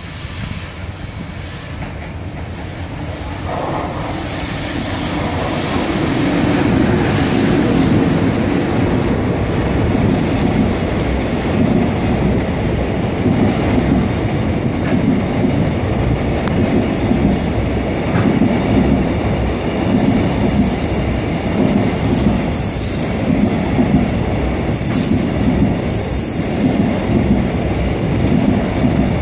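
A freight train hauled by an EH500 electric locomotive passing at speed, growing louder over the first several seconds. The container wagons' wheels then clatter over the rail joints in an even rhythm, about once a second, with a few short, high wheel squeals near the end.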